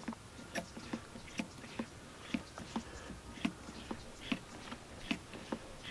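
Staresso Classic portable espresso maker's hand pump being worked in steady strokes, a short click at each stroke, about two or three a second. The pumping builds pressure to push the hot water through the coffee.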